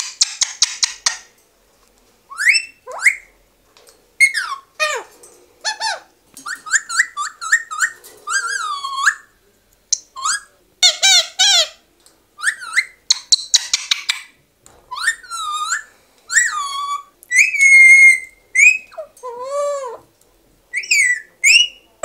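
Alexandrine parakeet whistling: a string of short whistles that slide up and down in pitch, broken by a few bursts of harsh, raspy chatter.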